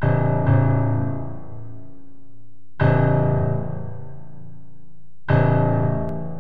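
Solo piano playing heavy low chords, each struck and left to ring out and fade. There are two strikes close together at the start, then single chords about two and a half seconds apart.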